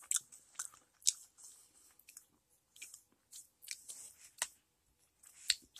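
Popcorn being chewed with the mouth close to the microphone: a run of short, irregular crisp crunches.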